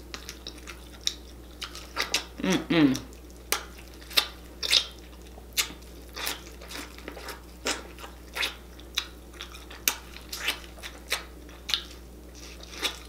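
Close-up wet mouth sounds of a person eating saucy chicken with her fingers: biting, chewing and lip smacks, heard as irregular sharp clicks about one or two a second. A short falling "mm" about two and a half seconds in.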